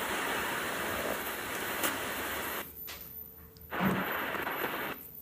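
Sony radio's speaker hissing with static between stations as interference from a nearby plasma globe makes it switch channels. The hiss cuts out a little under three seconds in, comes back with a short blurt near four seconds, then drops away again.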